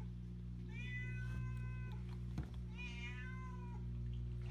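Cat meowing: two long meows, each about a second, with a steady low hum underneath.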